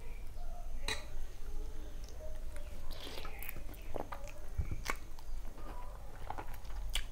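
Close-miked eating sounds: biting into and chewing a piece of chicken curry by hand, with wet mouth noises and a few sharp clicks.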